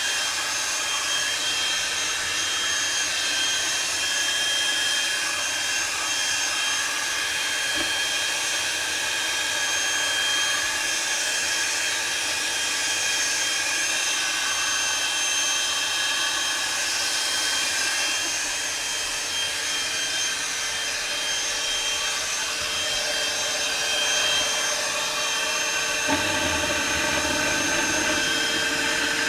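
Einhell PXC TE-VC 18 Li cordless hand-held vacuum cleaner running steadily, with a high whine over its motor noise. Near the end a lower, rougher sound joins in.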